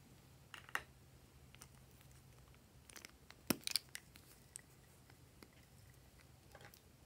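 A few light clicks and taps of small hard objects being handled: gold-painted eggs and a lipstick knocking together in the hand. The sharpest clicks come in a quick cluster about three and a half seconds in.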